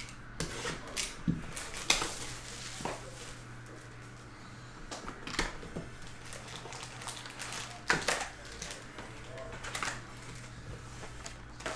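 Hands opening a cardboard hobby box of Panini Chronicles Draft Picks football cards and pulling out the foil packs: scattered taps, scrapes and crinkles, over a low steady hum.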